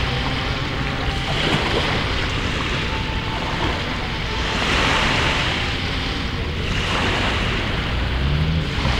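A pack of motocross bikes racing some way off, their engines blending into a buzzing that swells and fades, loudest about halfway through. Wind buffeting the microphone adds a constant low rumble.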